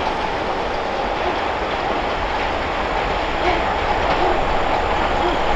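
Reading Blue Mountain & Northern passenger train running away down the line, a steady rumble of wheels on rail.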